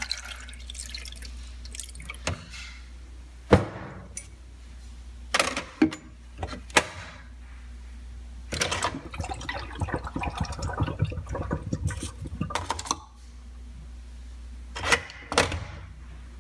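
Water pouring and gurgling in a Keurig single-serve coffee maker, with a longer spell of sputtering in the middle. Several sharp clicks and knocks of the machine being handled come before and after it.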